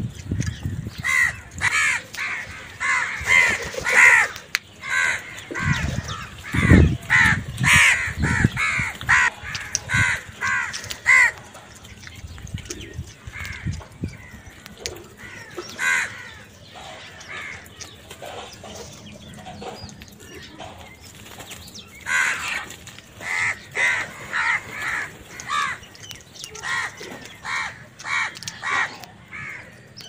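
A flock of house crows cawing over food. The caws come in quick runs, thinning out in the middle and picking up again toward the end, with a few low thuds about a quarter of the way through.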